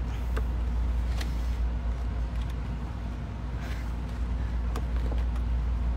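A few scattered clicks and rustles of plastic packaging being handled by someone struggling to open it, over a steady low rumble.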